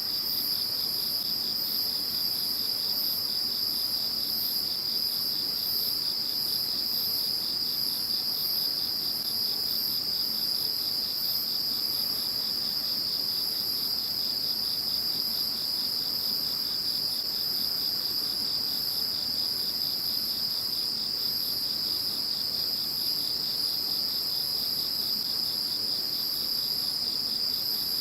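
A chorus of several singing insects calling together: one continuous high trill, with short, thinner chirps repeating about once a second higher still.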